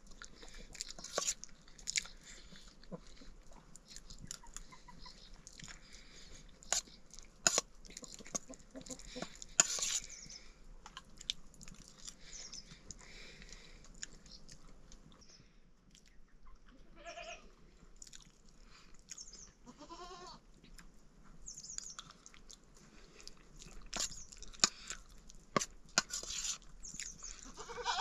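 Goat bleating: two wavering calls a few seconds apart past the middle, among scattered light clicks and knocks.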